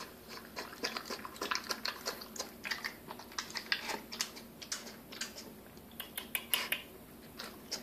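Bull terrier puppy eating from a food dish: an irregular run of quick clicks and clinks of teeth and food against the bowl, thickest near the middle.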